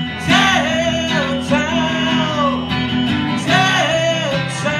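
Live acoustic guitar and voice: a man strums chords on an acoustic guitar while singing two long held phrases.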